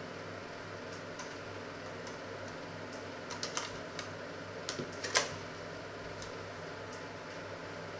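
Light clicks and taps of kitchen utensils being handled, clustered about three to five seconds in, the sharpest just after five seconds, over a steady low hum.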